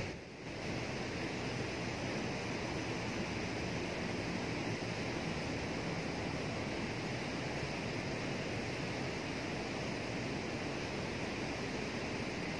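Fast water rushing through a canal sluice gate: a steady, even rushing noise.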